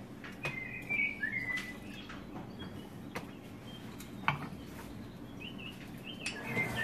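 Birds chirping in short, gliding calls, about a second in and again near the end, with a few sharp clicks and knocks between them.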